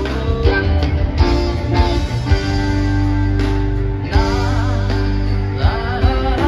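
Live band playing: electric guitars, bass, keyboards and drums, with a wavering high lead line over steady bass notes and drum hits.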